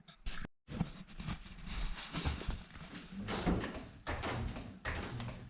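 Irregular metal clanks, knocks and scraping from hand work on a VW dune buggy's wheel.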